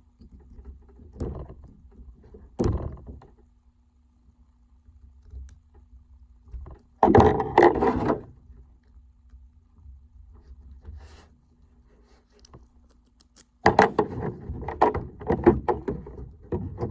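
Small metal tools (a little file and screwdriver) scraping and prying at the C-clip on a Kwikset lock cylinder. There are two sharp clicks in the first three seconds and a loud burst of scraping about seven seconds in. Continuous scraping and rubbing starts near the end.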